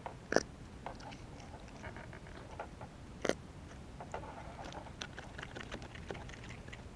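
Small clicks, scrapes and rustles of hands and gear working a swallowed fishing hook out of a fish's mouth, with two sharper knocks, one about half a second in and one about three seconds in.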